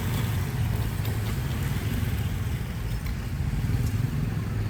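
Diesel locomotive engine running steadily with a low, even rumble.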